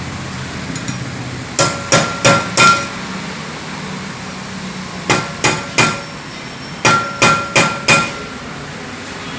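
A hammer tapping on a steel wheel rim in three quick runs of four, three and four blows, each blow with a short metallic ring. This is typical of clip-on balancing weights being knocked onto the rim during wheel balancing.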